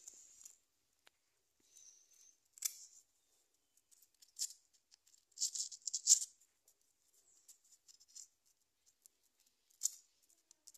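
Sandpaper rubbing against the electrode end of a motorcycle spark plug, worked by hand to clean it. It comes as several short, scratchy strokes with gaps between them, the strongest about halfway through.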